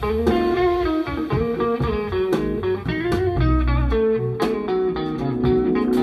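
Blues guitar music with bass, played back through folded horn loudspeakers with Lii Song PT-10 full-range drivers.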